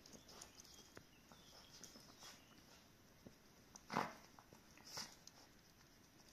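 Shiba Inu puppies snuffling and rustling through a fleece snuffle mat, faint throughout. There is a short sharp sound about four seconds in, the loudest, and a smaller one about a second later.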